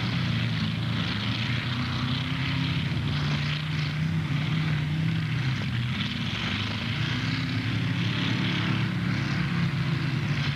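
Demolition derby car engines running hard together in a steady drone, their pitch shifting slightly as the cars push against each other.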